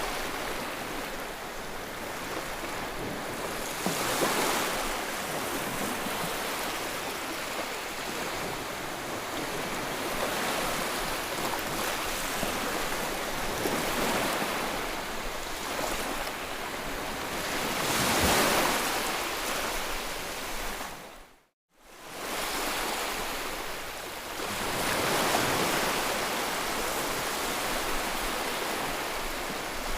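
White-noise track of steady rushing noise, swelling and ebbing every few seconds like surf breaking. It drops briefly to silence about two-thirds of the way through, then fades back in, as at a loop seam.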